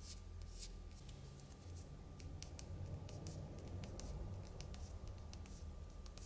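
Small leather swatch coated with two layers of BLK 3.0 acrylic paint being bent and squeezed between fingers, giving faint, irregular scratchy crackles and ticks. The paint film is noticeably less flexible than leather paint.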